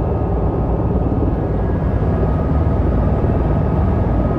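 Helicopter cabin noise: the steady, loud drone of the engine and rotor heard from inside the cabin, with a faint steady whine above it.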